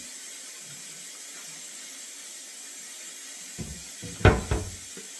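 Kitchen tap running into the sink with a steady hiss. Near the end there is a knock followed by two louder clunks as things are handled in the sink.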